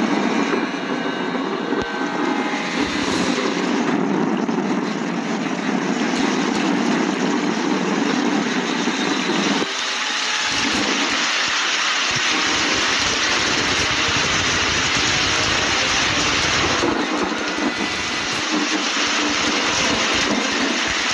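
Rushing floodwater from a flash flood, a loud steady noise of fast-flowing muddy water; its character changes abruptly about ten seconds in and again near the end.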